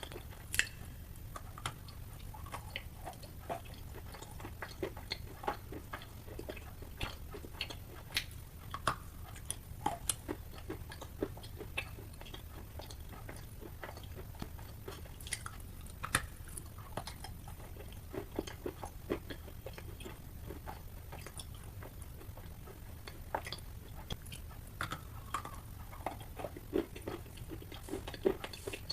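Wet chalk being bitten and chewed close to the microphone: soft, irregular crunches and clicks, several a second, over a steady low hum.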